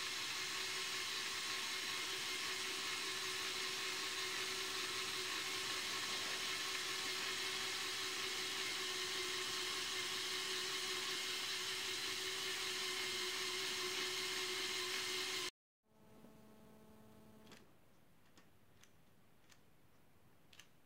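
Lego Technic Power Functions electric motor and plastic gear train whirring steadily, spinning the model helicopter's main rotor and driving the winch; it stops abruptly about fifteen seconds in. A short, quieter hum follows, then a few faint plastic clicks near the end.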